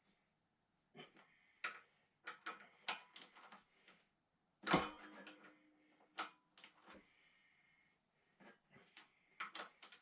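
Metal tools clicking and knocking against engine parts in a series of short, uneven taps, with one louder clank about halfway through that rings briefly.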